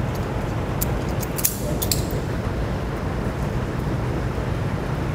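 Hand wire strippers clicking a few times as they strip insulation off a thin yellow solenoid lead, over a steady background noise.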